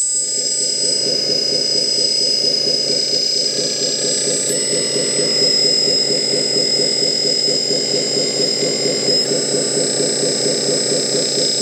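Electric hydraulic pump of a 1/14 LESU 8x8 RC hook-lift truck running steadily under load with a high whine and a fast, even pulsing, driving the hook arm as it pulls the container onto the chassis. Its pitch shifts slightly about four and nine seconds in.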